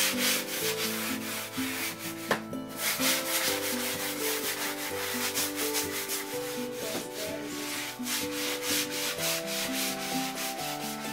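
A sanding sponge rubbed by hand over a primed drywall patch in rhythmic back-and-forth strokes, with a brief pause about two seconds in. The sanding knocks down the grain that the primer has raised on the patch.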